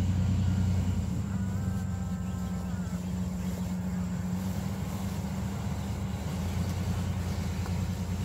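Minivan engine running at a low, steady idle as the van creeps forward at walking pace over grass.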